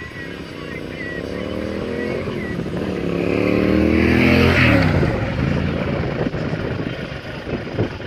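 Yamaha XT1200Z Super Ténéré's parallel-twin engine accelerating toward and past the microphone. It climbs in pitch, shifts up about two seconds in, and climbs again to its loudest as it passes about four and a half seconds in. After that the pitch drops as it pulls away.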